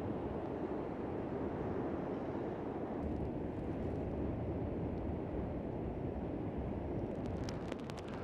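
Strong onshore wind buffeting the microphone: a steady low rumbling noise, heavier from about three seconds in.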